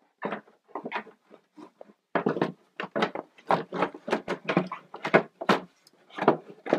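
Motor hood cover of a Livestrong treadmill being handled and fitted back over the motor compartment, giving a run of irregular knocks and clatters that grows busier after about two seconds.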